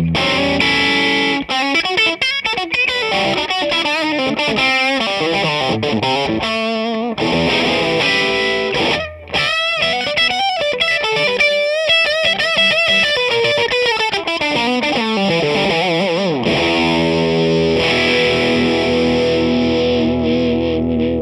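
Orville SG electric guitar played through a Ceriatone Super Sound 100W amp head with a Centura overdrive pedal on, gain and treble at full: distorted lead lines with fast runs and bent, wavering notes. About three-quarters of the way through it settles on a chord that is left ringing.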